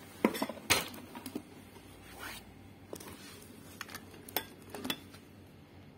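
Scattered light knocks, clicks and rubbing as hands handle a speaker cabinet and its amplifier board with its wires. The cabinet's own woofer gives out no sound: it is the part that is not working.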